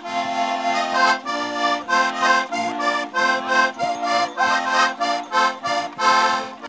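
Lively traditional folk dance music: a melody in short rhythmic chord phrases over a steady low drone, cutting off at the end.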